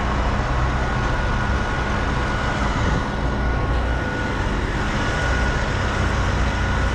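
Heavy diesel engine running steadily at a constant speed: a low rumble with a thin, steady whine above it.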